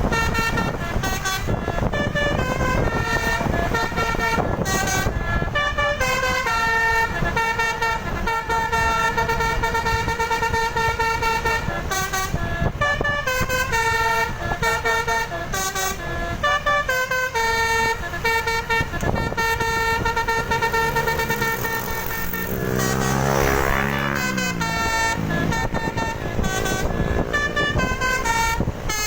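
Indonesian 'telolet' bus musical air horn playing tune after tune, several tones at once stepping from note to note with short breaks. About 23 seconds in, a wavering siren-like glide rises and falls. A low rumble runs underneath.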